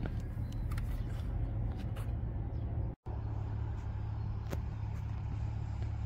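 Steady low outdoor rumble with a few faint ticks. It drops out for an instant about halfway through.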